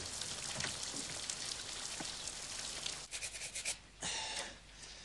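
Steady rain falling, an even hiss with a run of crackles toward the end. The hiss stops about four seconds in and a short rustling sound follows.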